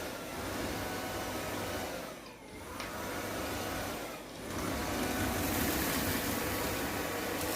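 LG robot vacuum cleaner running, its motor whirring steadily, dipping briefly twice and getting louder over the last few seconds.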